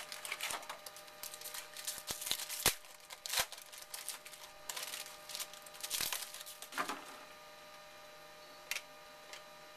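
A trading-card pack being torn open and the cards handled: a quick run of crinkles, rips and sharp clicks that stops about seven seconds in. After that only a faint steady electrical hum remains, with one more click near the end.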